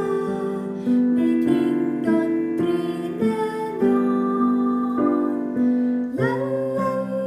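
Piano keyboard played: a slow melody over held chords.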